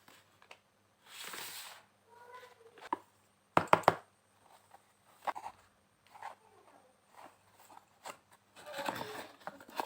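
Small plastic pieces of a miniature toy kitchen set being handled: scattered light clicks and taps, the loudest cluster a few seconds in, with a couple of brief rustles.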